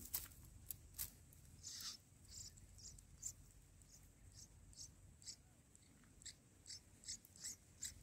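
Faint, short, high-pitched peeps and clicks in an irregular run, two or three a second: red-whiskered bulbul nestlings begging while a parent feeds them at the nest.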